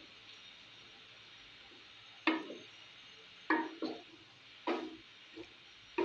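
Wooden spatula stirring a thin potato curry in a coated cooking pot, knocking against the pot about five times from a little over two seconds in, over a faint steady hiss.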